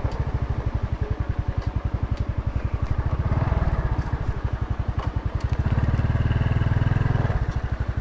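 Small step-through motorcycle's single-cylinder engine running slowly with an even, rapid pulse as the bike is eased off the trail to park. It swells louder twice, about three seconds in and again around six seconds in.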